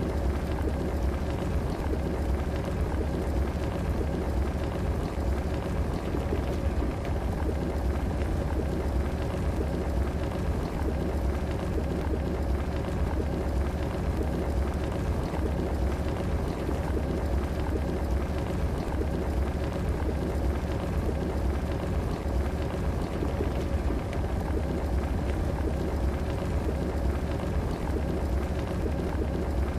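Electric kettle heating water: a steady, even bubbling noise with a deep low hum underneath and no breaks.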